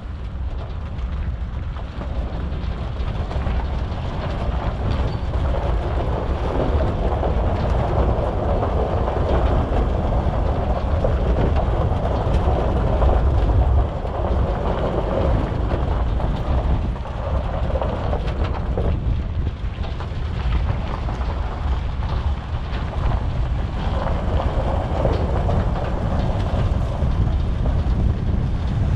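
Pickup truck driving slowly over a snowy track while towing a trailer loaded with firewood: a continuous low rumble of engine, tyres and wind, with scattered knocks and rattles from the trailer and truck bed.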